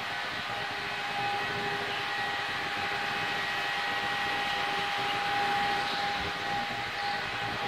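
A steady mechanical hum with a few held tones over a constant rushing noise, unchanging throughout.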